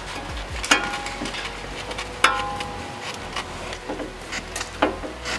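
Metal tools knocking and clinking against the truck's brake parts: two sharp metallic knocks that briefly ring, one under a second in and one a little after two seconds, with lighter taps and clinks between them.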